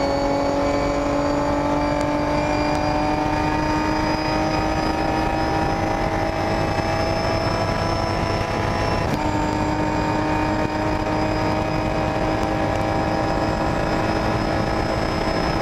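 Ginetta G50 GT4 race car's 3.5-litre Ford V6 heard from inside the cockpit under full throttle, its pitch climbing slowly in a high gear, with one quick upshift about nine seconds in. Road and wind noise run underneath.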